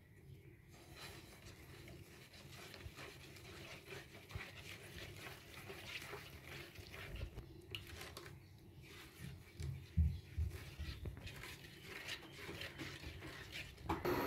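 Silicone spatula stirring a thick mix of milk and milk powder in a nonstick pan: faint, irregular scraping and stirring, with a few soft knocks about ten seconds in.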